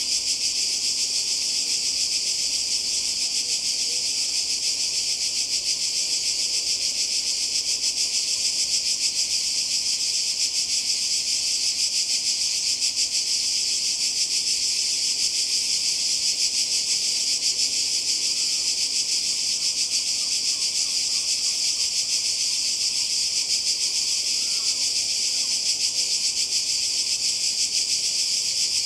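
A dense chorus of cicadas shrilling without a break, a steady high-pitched buzz with a fast flutter in it.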